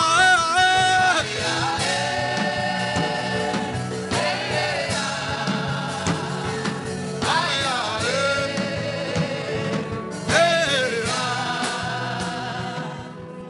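Gospel worship music: a voice singing long wavering phrases over steady held backing chords, fading down near the end.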